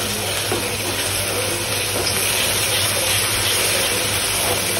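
Onions and ginger-garlic paste sizzling in hot oil in a steel kadai as they are stirred with a wooden spatula, with a steady low hum underneath.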